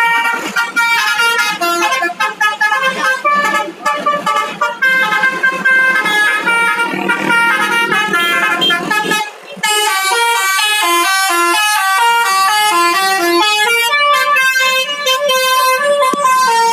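Bus telolet horn of the 'basuri' type playing a tune: a quick run of stepped, pitched horn notes. It breaks off briefly about nine and a half seconds in, then a second tune starts.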